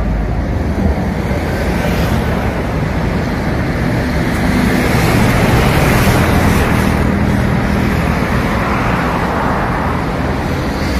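Steady motor-vehicle and road-traffic noise with a low engine hum, swelling slightly around the middle.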